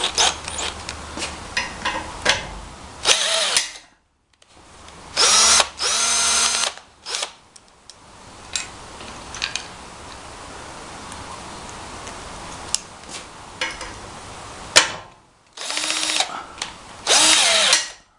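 Cordless drill driving a rivet attachment in its chuck, run in about five short bursts, with the motor whine rising and falling in pitch, as rivets are pulled and set. Clicks and small clatters between the runs.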